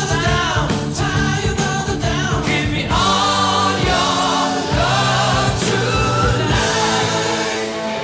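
Background song: a singing voice over a band with a steady beat.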